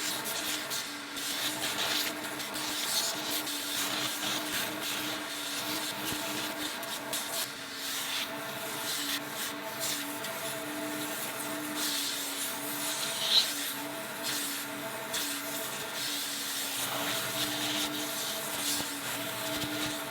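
Steady scrubbing or rubbing on a surface over a constant motor hum, with one short sharp click near the end.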